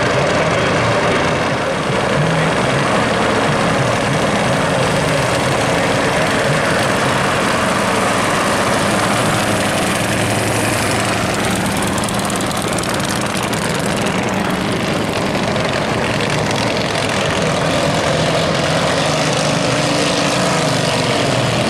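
Leyat-Helica propeller car running, its engine and front propeller making a loud, steady sound.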